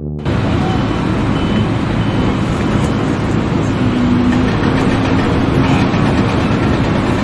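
Loud, steady noise of a heavy vehicle or machine engine running, with a few faint short high beeps in the first couple of seconds.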